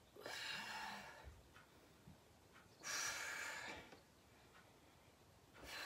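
A woman breathing hard while exercising: three long, hissy breaths about three seconds apart.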